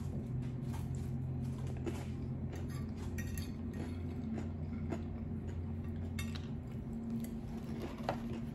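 Eating sounds: scattered light clicks and clinks of cutlery and chewing, over a steady low hum whose lowest part drops away about two-thirds of the way through.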